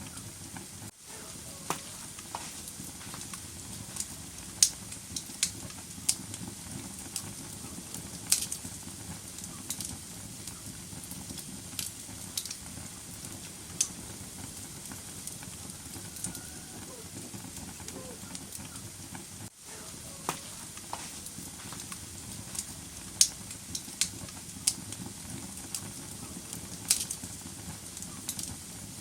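Wood fire burning in a fireplace: a steady low rush of flames with irregular sharp crackles and pops from the burning logs. Twice the sound drops out for an instant.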